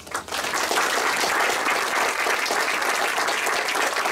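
Audience applauding: many people clapping, breaking out all at once and holding steady.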